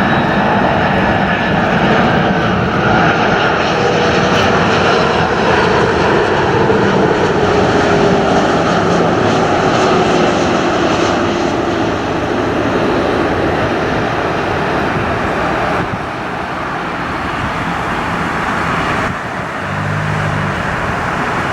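Airbus A340-300's four CFM56 jet engines during the landing, a loud, steady rush of jet noise with a faint tone that slowly falls in pitch. A short low hum rises out of it near the end.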